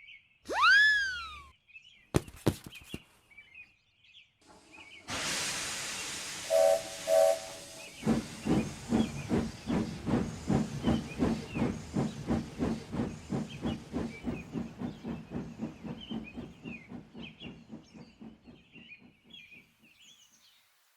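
Steam locomotive sound effects: a hiss of steam, two short whistle toots, then steady rhythmic chuffing as the engine pulls away, fading into the distance. Earlier, a short loud tone rises and falls in pitch, followed by a few clicks; birds chirp faintly throughout.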